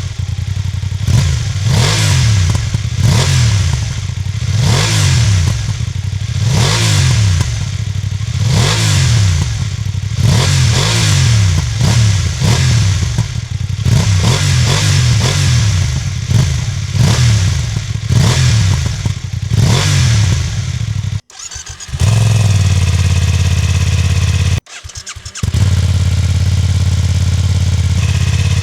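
BMW F900R's 895 cc parallel-twin engine, cold, revved in quick throttle blips about once a second, the pitch rising and falling with each blip. Near the end the sound cuts out briefly twice, and the engine settles to a steady idle.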